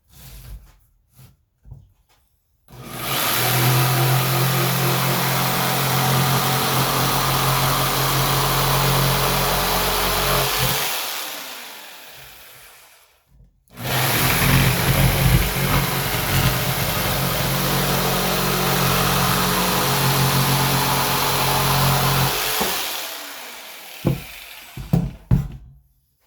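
Black & Decker corded jigsaw at full trigger for maximum speed, its T-shank blade sawing through a 1x8 board, very loud. It runs in two long stretches of about eight seconds each, separated by a brief stop. Each run winds down as the motor slows, and a few knocks of handling come before and after.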